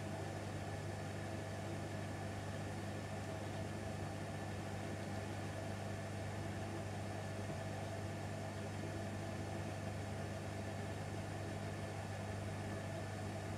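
Bosch WAQ28470GB washing machine spinning its empty drum fast, a steady low hum with a higher motor whine, partway through its slow climb toward 1400 rpm.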